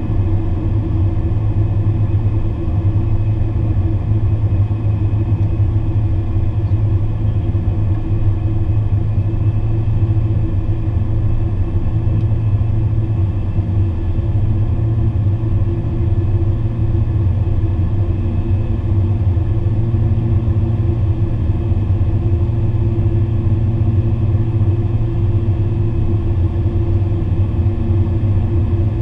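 Steady low drone of a Beechcraft Super King Air 350's twin PT6A turboprop engines and propellers in cruise descent, heard inside the cockpit.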